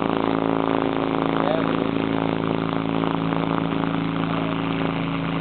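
Subwoofer driven by a frequency generator, playing a steady low buzzing tone with many overtones while it shakes a tub of cornstarch-and-water goo.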